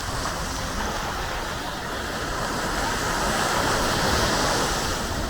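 Sea waves breaking and washing up the beach: a steady rush that swells to its loudest about three to four seconds in, then eases.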